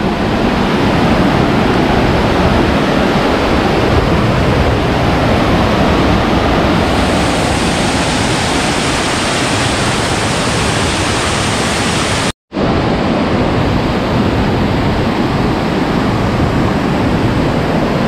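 Waterfall rushing: a loud, steady roar of falling water. It breaks off for a split second about twelve seconds in.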